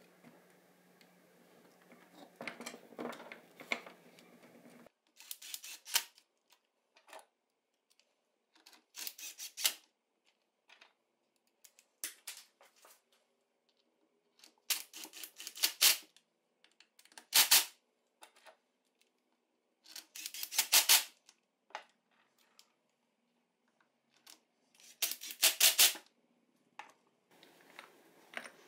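Hand work on tool parts: short bursts of rapid clicking and tapping, six or seven in all, a few seconds apart with silence between.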